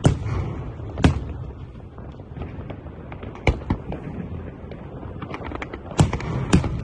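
Aerial fireworks display: loud shell bursts bang at irregular intervals, with lighter crackling pops between them over a continuous low rumble.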